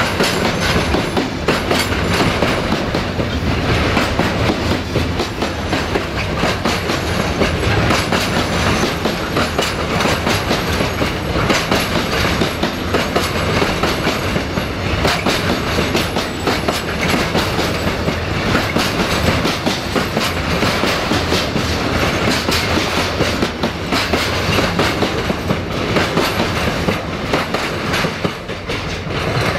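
Container freight train's flat wagons rolling past close by, their wheels clacking over the rail joints in a steady, continuous run of clicks over the rumble of the train.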